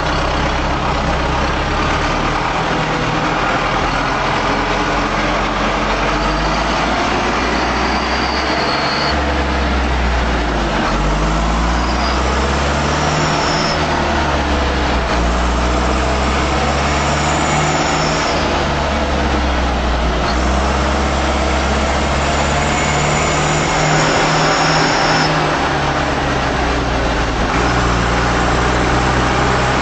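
Fendt 310 tractor's turbocharged diesel engine running and revved up and down several times. A high turbo whistle rises over the engine at each rev, about four times.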